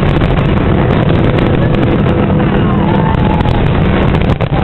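Large fireworks display with many rapid bursts merging into a continuous loud rumble, with a brief lull near the end.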